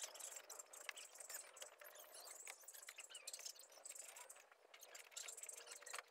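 Faint small clicks and rattles of a spanner working a car battery terminal nut while a wire's fork terminal is fitted onto the post.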